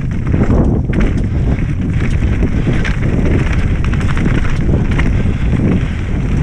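Wind buffeting the camera microphone while an e-mountain bike's tyres rumble over a rough dirt and stone trail on a fast descent. Frequent small knocks and rattles come from the bike as it crosses bumps.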